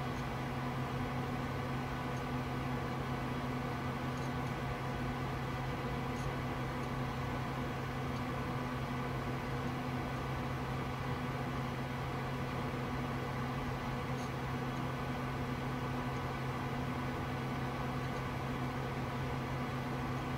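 Desktop PC fans and power supply running steadily: an even hum with a low tone and a fainter one above it, over a fan hiss, and a few faint high ticks.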